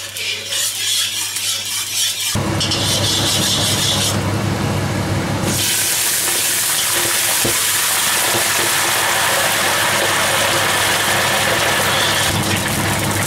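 Sugar syrup and oil sizzling as they caramelize in a hot cast-iron wok. A few seconds in, water poured from a kettle into the hot caramel turns it into a loud, steady hissing boil.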